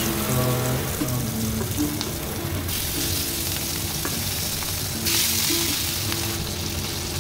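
Marinated rohu fish pieces sizzling in hot oil in a frying pan. The sizzle swells twice, about three seconds in and again about five seconds in, as more pieces go into the oil.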